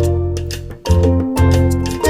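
Background music with a steady, bouncy bass beat and sustained melody notes.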